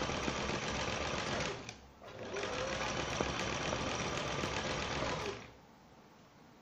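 Domestic sewing machine stitching fringed trim onto fabric in two runs: a short pause about two seconds in, then it runs again and stops about five seconds in.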